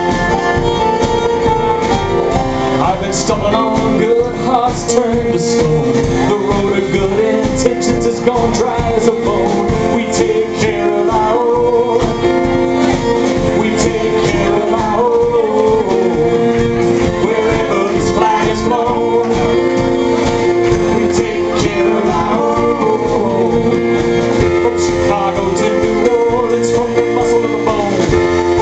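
Live acoustic band playing a country-folk rock song: strummed acoustic guitar, bowed fiddle and cello, and drums keeping a steady beat, with a male voice singing lead.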